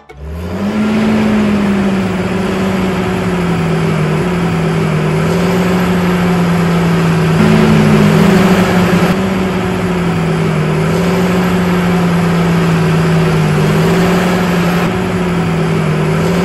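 Steady motor drone of a toy mini tractor pulling a loaded trailer. The drone starts suddenly as the music cuts off, and its pitch dips and rises slightly every few seconds.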